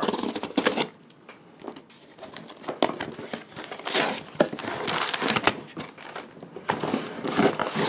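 Cardboard shipping box ripped open along its tear strip, with a louder tear in the first second, followed by irregular crinkling of plastic air-cushion packaging as it is handled and lifted out.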